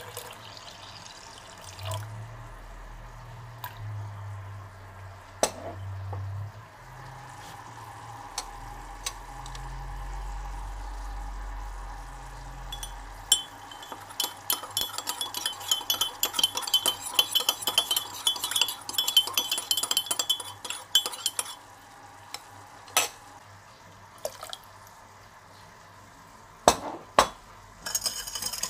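A spoon stirring custard powder into a little water in a small cup, clinking and scraping rapidly against the sides for several seconds midway, mixed so it does not go lumpy. A few scattered knocks of utensils and bowls come before and after.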